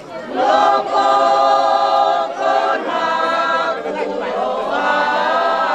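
A group of women singing together without instruments, in long held notes with short breaths between phrases.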